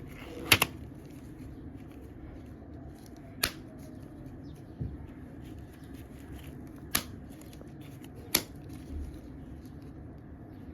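Balloons bursting: four sharp pops a few seconds apart, over a low steady hum.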